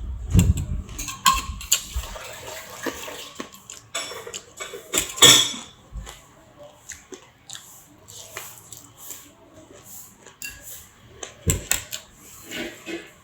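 Kitchen utensils clinking and clattering against dishes and pans as chicken feet are prepared for frying: a run of irregular knocks and clicks, the loudest about five seconds in.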